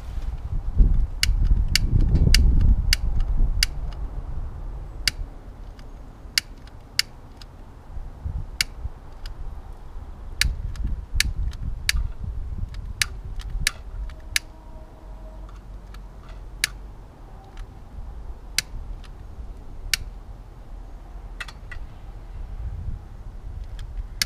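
Some twenty sharp clicks of a long-nosed piezo utility lighter's igniter, pressed again and again at irregular intervals while trying to light a methylated spirit stove burner. A low rumble runs underneath, loudest in the first few seconds.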